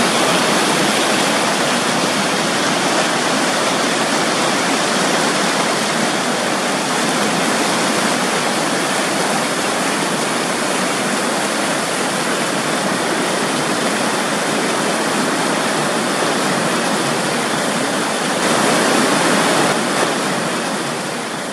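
River rapids in high spring water, rushing and churning with a loud, steady roar of white water.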